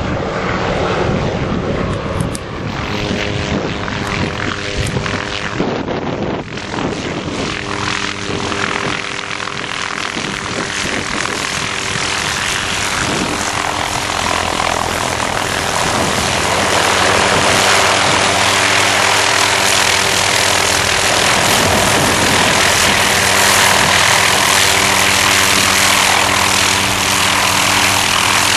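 Hughes/MD 500 helicopter in flight close by: steady turbine whine and main-rotor noise, growing louder about halfway through as it comes nearer.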